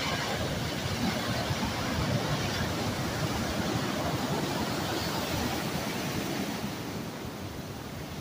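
Heavy ocean surf breaking and washing through foam as a steady rush of water, easing slightly near the end.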